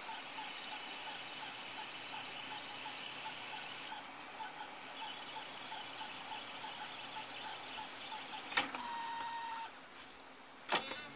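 Sony TC-650 reel-to-reel tape deck winding its tape at high speed: a steady whirr with a faint whine from the transport motor and the moving tape. A sharp click comes about eight and a half seconds in, the whirr dies away, and another click follows near the end.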